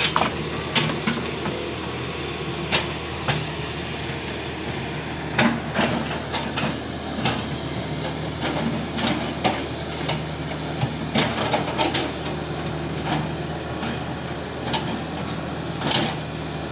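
Excavator's diesel engine running steadily, with irregular sharp knocks, about a dozen, scattered through it.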